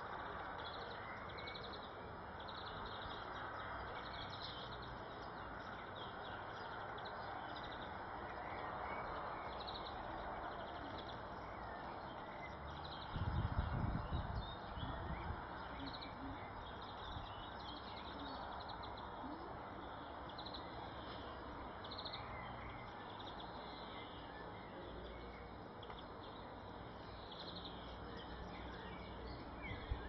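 Small birds chirping in short, scattered calls over a steady outdoor background hiss, with a brief low rumble about halfway through.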